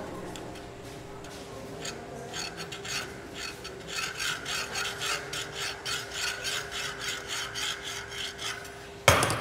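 Hand files rasping back and forth on workpieces clamped in bench vises, in a rhythm of about two to three strokes a second over a faint steady hum. A single loud clack about nine seconds in.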